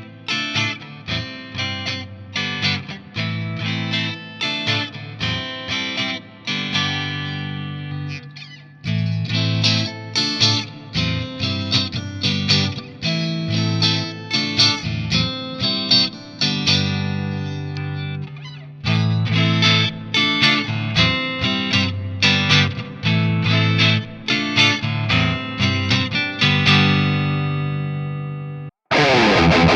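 Cort G260 electric guitar played through an amplifier: three phrases of picked notes, each ending on a ringing chord that fades, with brief pauses about nine and nineteen seconds in. Near the end the sound cuts out for a moment, then a louder, more distorted tone comes in.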